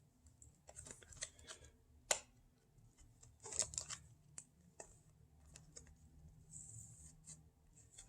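Trading cards being handled and slid into plastic card sleeves: faint rustling and light clicks, with a sharper click about two seconds in and a short sliding rustle near the end.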